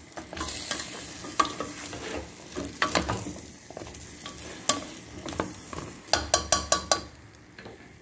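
Spoon stirring cubed squash and ground pork in a metal pot, knocking and scraping against the pot, over a faint sizzle of the cooking. A quick run of about six knocks comes a little after six seconds in.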